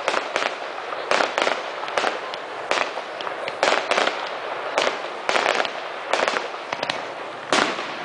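Aerial firework shells bursting at a display: an irregular string of sharp bangs, about two a second, often in quick pairs or triples, over a steady background hiss.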